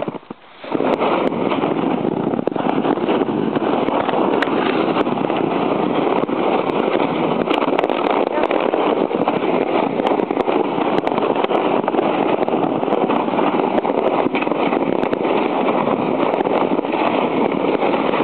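Plastic sled sliding over snow as a horse tows it: a steady, rough scraping hiss that starts abruptly about a second in.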